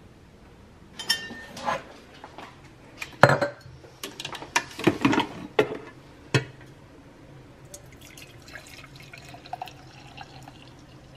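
A run of clinks and knocks of glass and ceramic on a kitchen counter, then coffee being poured from a glass coffee carafe into a ceramic mug in the last few seconds.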